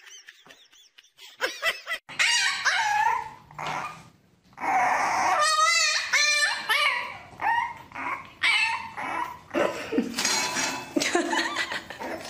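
French bulldog puppy yipping and whining in a quick run of short, high-pitched calls that rise and fall, starting about two seconds in.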